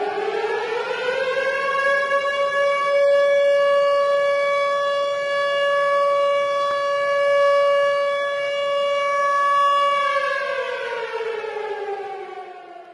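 Tornado warning siren rising in pitch to a steady wail, holding it for about eight seconds, then winding down with a falling pitch and fading out at the end.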